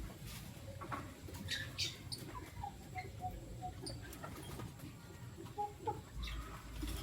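Lutino lovebirds chirping in short, scattered calls, with a quick run of short notes about two and a half seconds in, among small scratchy clicks.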